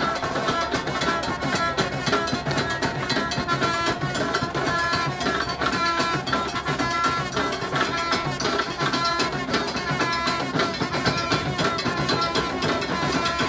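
Loud dance music with steady drumming and percussion driving the beat.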